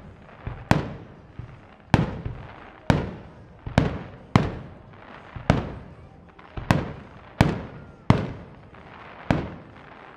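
Fireworks shells bursting overhead: about ten sharp bangs, roughly one a second, each fading out in a short echo.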